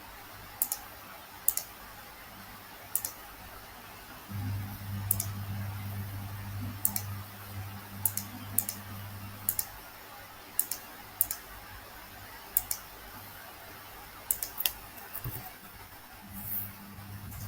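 Computer mouse clicking, single sharp clicks about a second apart, a few in quick pairs. A low steady hum comes in about four seconds in, stops near ten seconds and returns near the end.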